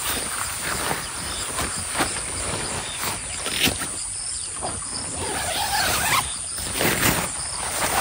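Insects chirping steadily, with irregular knocks and rustles running through it.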